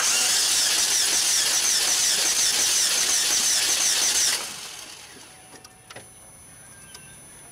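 A car engine cranked over on its starter with the radiator cap off, coolant blasting out of the radiator filler neck in a loud rushing spray that splashes over the hood; it stops abruptly about four seconds in. Compression being forced into the cooling system like this is the sign of a blown head gasket, cracked block or cracked head, and in this engine it turned out to be a cracked head.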